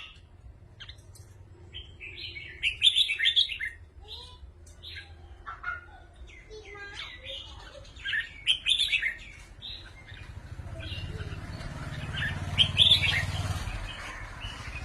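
Red-whiskered bulbuls singing in short bursts of chirpy phrases, several times over, answering one another with their 'rik' calls. From about ten seconds in, a rushing noise rises beneath the song.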